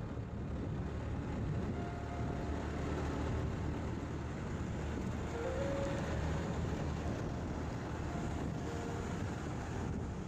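Steady wind and road noise of a motorcycle riding along, with faint short tones sounding now and then over it.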